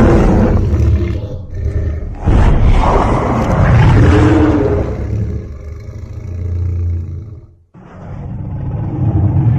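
Custom-made Godzilla roar sound effects: one loud, deep roar, then a second, longer roar about two seconds in that fades out into a low drone, and a third starting just before the end after a brief gap.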